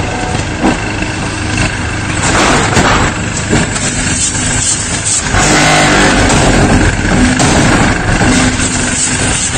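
Concrete block-making machine (Hitech Engineering HT-1029) running through its moulding cycle: a steady mechanical hum with a few sharp knocks. About five seconds in, the noise gets louder and steadier.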